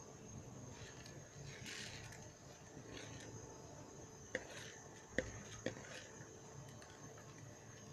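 Faint rustle of soaked rice being tipped from a plastic bowl into a pot of broth, then three sharp knocks of the bowl against the pot's rim, about four to six seconds in, as it is shaken empty.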